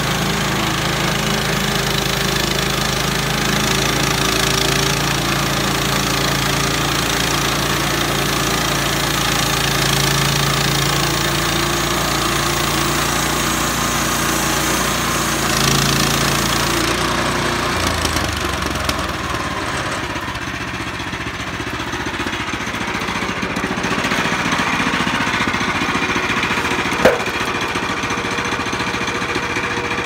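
Small gasoline engine of a portable band sawmill running under load as the band blade cuts a board from a log. The deep engine note falls away about eighteen seconds in and the sound is lighter after that, with one sharp click near the end.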